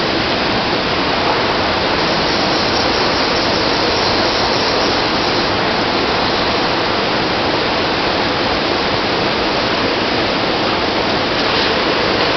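Waterfall and fast white water rushing, a steady, even roar of falling water.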